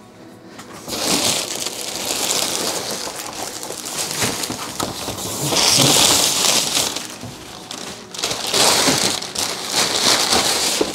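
Brown kraft packing paper being pulled out of a large cardboard box and crumpled: continuous rustling and crinkling that starts about a second in and swells twice, around the middle and near the end.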